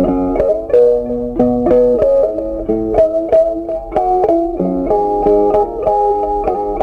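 Background music: an instrumental melody on a plucked-string instrument, single notes struck and left to ring, changing about every half second.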